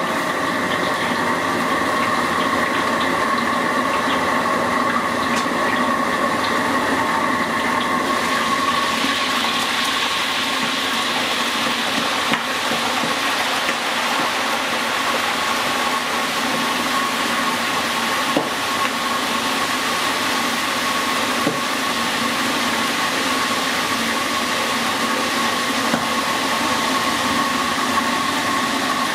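Whole mantis shrimp deep-frying in a wok of hot oil: a steady sizzle that grows stronger about eight seconds in. Underneath is a constant hum from the gas wok burner, with a few light metal clanks.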